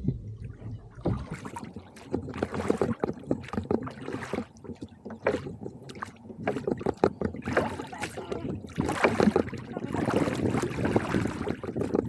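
Oars of a rowed duck punt pulling and splashing through the water stroke after stroke, with sharp knocks and clicks among the splashes.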